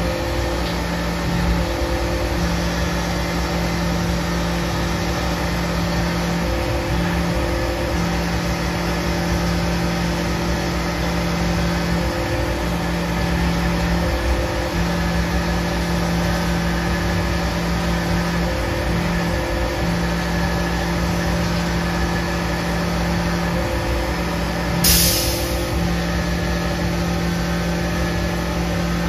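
Tormach 1100MX CNC mill spindle running an end mill through a light side-milling finish pass around two posts under flood coolant. It makes a steady hum whose tone drops out briefly every few seconds, over the spray of the coolant. A short sharp hiss sounds near the end.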